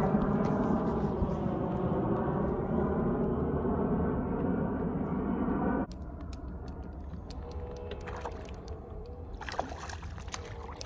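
A steady droning hum with many overtones cuts off abruptly about six seconds in. Near the end a hooked crappie thrashes and splashes at the water's surface.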